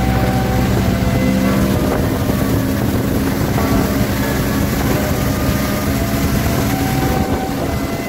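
Outboard motor running steadily at speed, pushing a long aluminium boat across the water, with rushing water from the hull and wind on the microphone.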